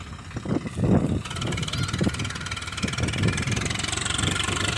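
Swaraj 744 FE tractor's diesel engine running as the tractor moves across a field, with a steady hiss joining in about a second in.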